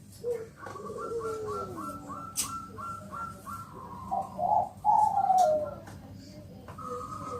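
Zebra dove (Bangkok-type perkutut) singing: a quick run of short, clipped notes at about four a second, then a few lower, falling coos.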